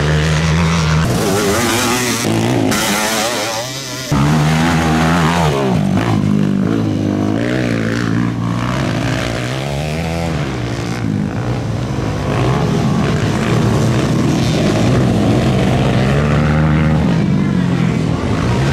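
ATV engines racing, revving up and down over and over, with a sudden jump in the sound about four seconds in.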